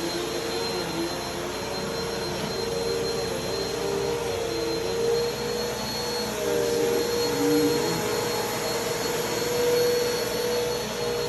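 Bissell vacuum cleaner running steadily, a constant motor whine over the rush of airflow.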